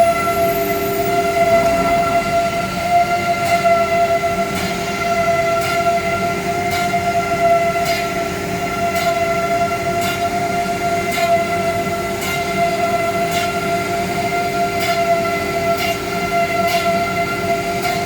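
Woodworking CNC router's spindle running with a steady high-pitched whine, with light ticks coming through about once or twice a second.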